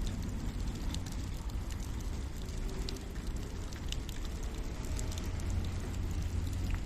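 Steady rain around a wood campfire, with a low rumble under it and scattered sharp ticks and crackles.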